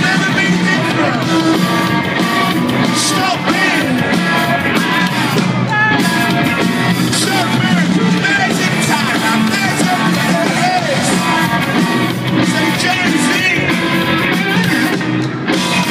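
Indie rock band playing live, heard from the crowd in an arena: electric guitars and drums with a sung lead vocal, loud and steady throughout.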